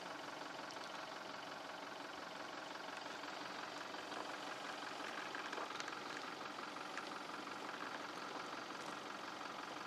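A 4x4 pickup truck's engine idling steadily.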